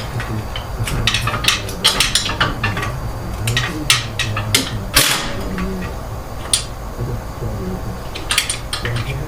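Metal hand tools and parts clinking and knocking in a series of short sharp clicks, with a louder knock about five seconds in. A steady low hum runs beneath them.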